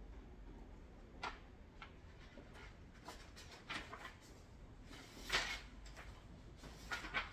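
A handful of short, soft rustling and scraping handling noises, the loudest about five seconds in and a quick pair near the end, over a faint steady low hum.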